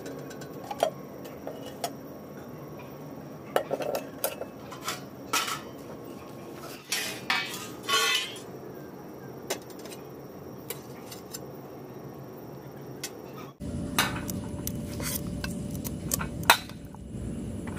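Stainless steel plates, bowls and pot lids clinking, knocking and scraping as they are handled and set down. After a cut near the end, more clinks come as rice is served onto a steel plate.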